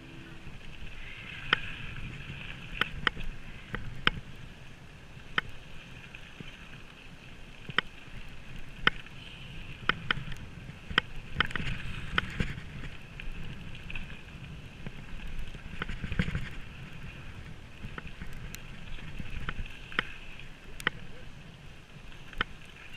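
Mountain bike riding down a packed-dirt trail: steady tyre rumble on the dirt with the bike rattling, and frequent sharp clacks as it hits bumps.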